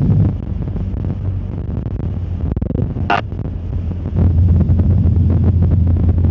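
Cessna 152's Lycoming O-235 four-cylinder engine droning steadily with airflow noise, heard inside the cockpit; the drone grows louder about four seconds in. A brief high chirp sounds once about three seconds in.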